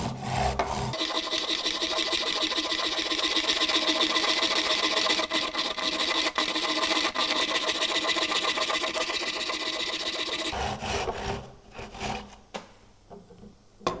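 Hand-held frame carbon saw cutting through a carbon-fibre handlebar held in cutting guides: steady, gentle sawing strokes for about nine seconds. The sawing stops with the cut through, and a couple of sharp knocks follow near the end.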